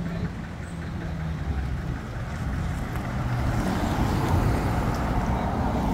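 A car driving past close by, its engine and tyre noise swelling from about halfway through, over a steady low hum.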